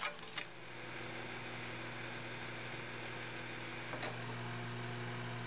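Microwave oven started on defrost: a couple of sharp clicks, then the steady hum of the running oven. One more click about four seconds in.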